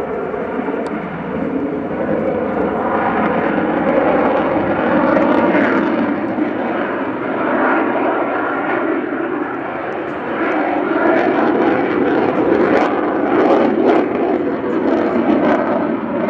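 F-16 fighter jet's single engine running in afterburner through display manoeuvres: loud jet noise that swells, eases about ten seconds in, then builds again with a crackle in the later part.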